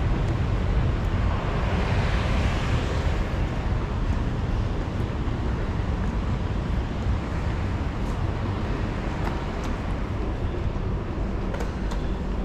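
Steady low rumble of a wheeled suitcase rolling over a stone-tiled floor, with a few faint clicks near the end.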